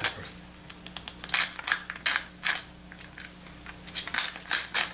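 Hand-twisted spice grinder turned over a bowl: a rapid run of dry clicks in short bursts, with a brief pause near the middle.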